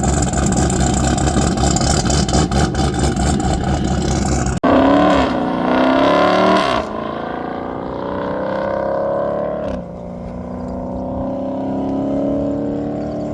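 A loud, rough, clattering engine noise for about the first four seconds, then a sudden break. After it, a race car engine pulls hard under full throttle, its pitch climbing and dropping sharply at two gear changes as it accelerates away and fades.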